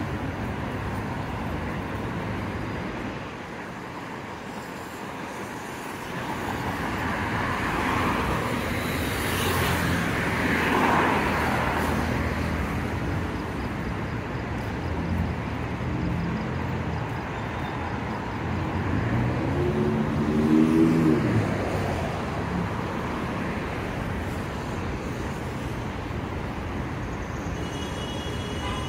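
Road traffic with cars going by, a steady hum of tyres and engines. Two vehicles pass close, one about ten seconds in and one about twenty seconds in; the second has an engine note that rises and falls.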